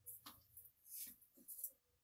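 Faint scraping and swishing of a spatula stirring red lentils and cauliflower in a non-stick frying pan, several short strokes in a row.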